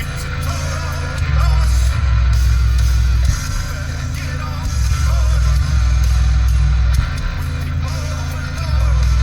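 Music played loud through a new, not yet broken-in 12-inch subwoofer, its deep bass coming in long sustained notes a couple of seconds each with softer stretches between. The bass stays clean, without clipping.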